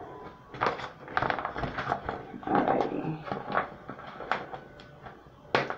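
Plastic wig packaging crinkling and rustling in irregular bursts as it is handled and opened.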